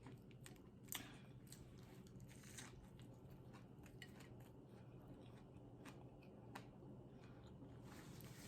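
Near silence: faint scattered clicks, with a brighter one about a second in, over a low steady hum.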